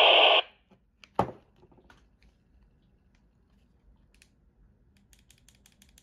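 A handheld UHF walkie-talkie's speaker gives a short burst of static right at the start. About a second in comes a single sharp click, followed by a few faint small clicks near the end.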